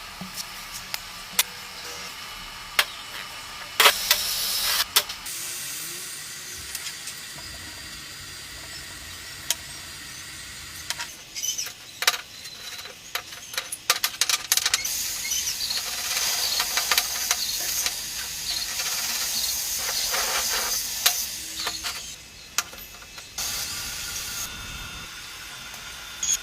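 Welding arc hissing and crackling, with irregular sharp pops; it grows louder and busier about halfway through and drops back near the end.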